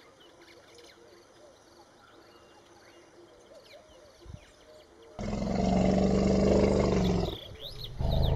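Faint bird chirps, then about five seconds in an African elephant gives a loud, low roar lasting about two seconds. It roars again just before the end.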